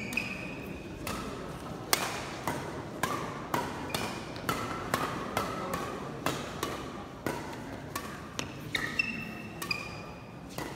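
A fast badminton doubles rally: sharp racket strikes on the shuttlecock about twice a second, with short sneaker squeaks on the court floor between hits.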